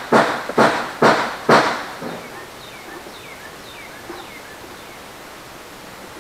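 A run of short, sharp hissing strokes, about two a second, ending about a second and a half in, made during cleaning of the compressor's plastic shroud. A few faint high chirps follow.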